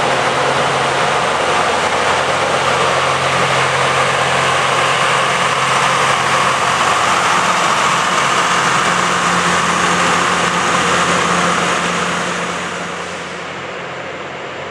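Loram rail grinding train passing close, its diesel engines running under a loud, steady rasping hiss from the grinding stones working the rail. The noise falls away about twelve seconds in.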